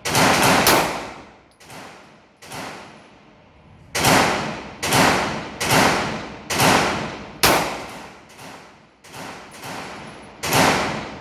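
Glock 9 mm pistol shots: about eight loud shots at an uneven pace, each with a ringing, echoing tail, and a few fainter shots in between.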